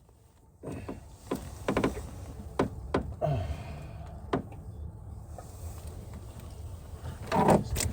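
A handful of light, separate knocks and taps, about six spread over several seconds, over a low steady background rumble.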